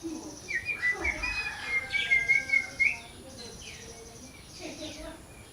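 Parrot calling: a busy run of short chirps and squawks, loudest in the first three seconds, then softer scattered calls.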